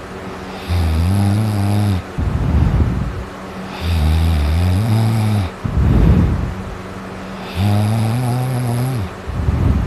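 Loud snoring, like a buzz saw: three long, low, droning snores on the in-breath, about three and a half seconds apart, each followed by a breathy rush of air on the out-breath.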